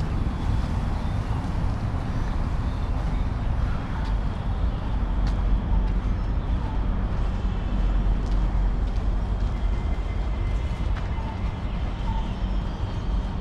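Steady low outdoor rumble with a few faint short high chirps and light ticks over it.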